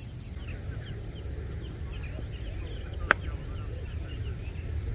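Many small birds chirping over a steady low rumble, with one sharp knock about three seconds in.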